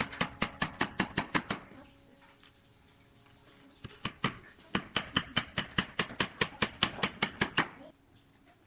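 Two runs of rapid, sharp taps, about six a second: a short run at the start, then a pause with a few stray taps, then a longer run of about three seconds.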